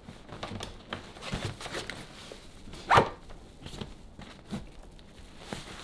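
Clothes and fabric rustling as they are pressed into a hard-shell suitcase, with small clicks and knocks from handling the case's lining and divider. About three seconds in, one short, sharp sound cuts through.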